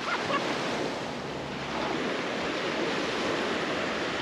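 Gulf surf breaking and washing up over sand: a steady rush of small waves.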